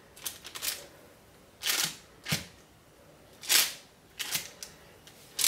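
Objects being moved and set down on a work surface: a series of short rustles, knocks and clatters, about half a dozen, the loudest about three and a half seconds in.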